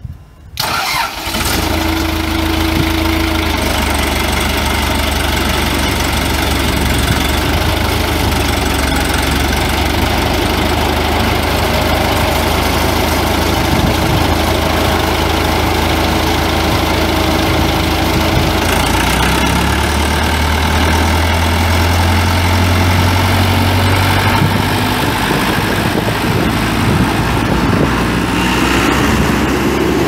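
John Deere 4039 four-cylinder diesel engine of a Morbark 13 wood chipper cranking and catching within the first second or so, then running steadily. Its low note changes about two-thirds of the way through.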